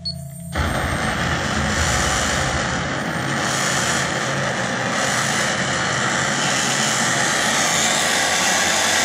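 Loud, steady rushing noise that starts abruptly about half a second in and holds evenly, with a faint slowly sweeping, jet-like shimmer in the upper range.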